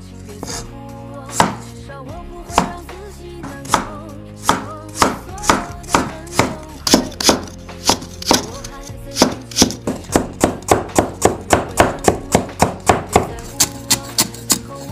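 Steel cleaver cutting on a wooden chopping board. It starts with slow single strokes through potato and radish, then speeds up to a fast, even chop of about four strokes a second through garlic sprouts.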